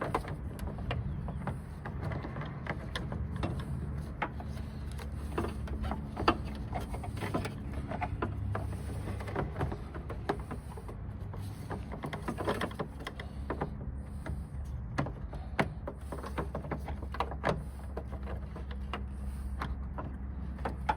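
Scattered small clicks and knocks of hands working a part into a car's headlamp housing from behind the bumper, over a steady low hum.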